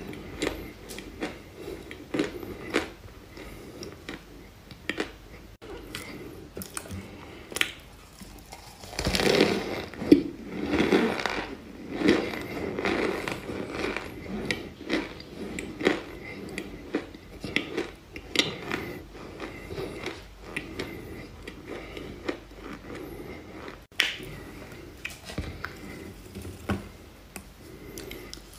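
Close-up crunching and chewing as a person bites into dry chunks of crumbly white earth, with irregular sharp crunches throughout and a denser, louder spell of chewing about a third of the way in.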